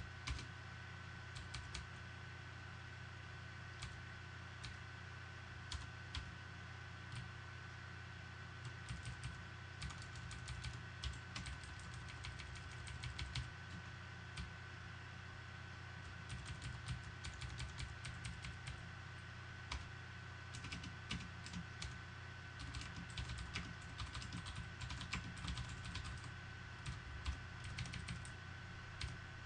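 Typing on a computer keyboard: irregular clusters of key clicks, busier from about a third of the way in, over a steady low hum and a faint high steady tone.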